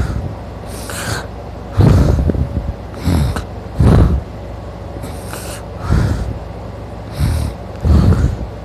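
A sleeping man snoring loudly, a rough snort about once a second.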